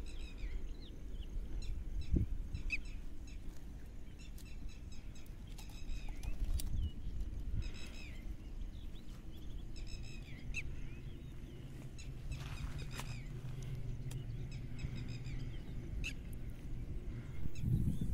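Small birds chirping in short, repeated calls, over a low outdoor rumble that grows louder near the end.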